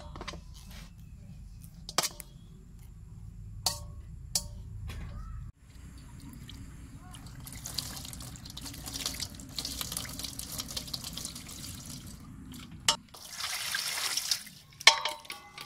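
Water poured from a plastic dipper into a stainless-steel basin, splashing over a snake as it is rinsed clean by hand, in two pours. Before that come a few sharp knocks of a knife working against the steel basin as the snake is cut.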